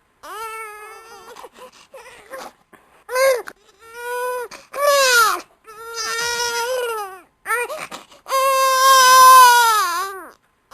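A baby crying: short broken whimpers, then a run of wailing cries, and a long wail near the end that drops in pitch as it fades.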